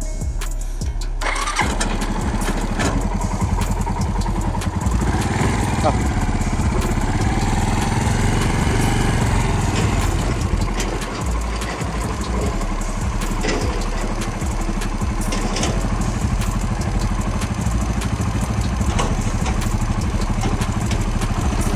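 An excavator's diesel engine running steadily, coming in about a second in, with scattered knocks and clatter over it.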